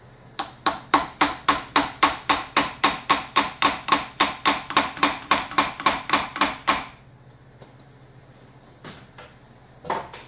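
Brass hammer driving the gland of a John Deere hydraulic cylinder deeper into the tube, about two dozen quick, even metal blows at roughly four a second for six seconds or so. The gland is being seated deeper to give room to fit its retaining ring. A light knock or two follows near the end.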